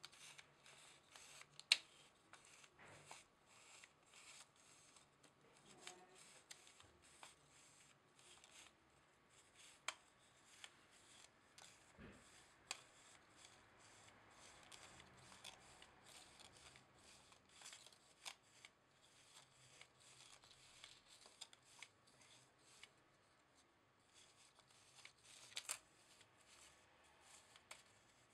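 Faint, irregular clicks and rustling of 35mm film being pushed by hand into the grooves of a plastic Jobo developing-tank spiral reel.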